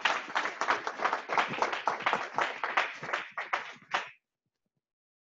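Audience applauding, thinning out and stopping about four seconds in.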